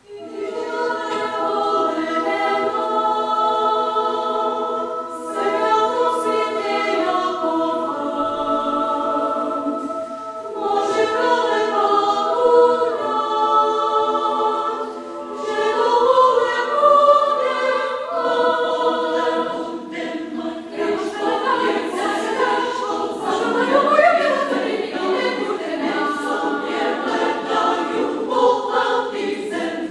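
Women's choir singing a cappella in several-part harmony, entering together on a full chord at the very start and continuing with held chords and moving lines.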